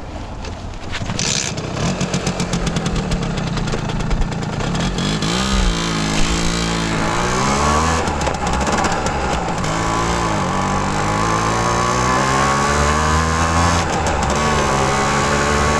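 Simson S51 moped's 50cc two-stroke single-cylinder engine pulling away and accelerating. Its pitch climbs in each gear and drops at gear changes about five, seven and ten seconds in, then rises steadily to the end.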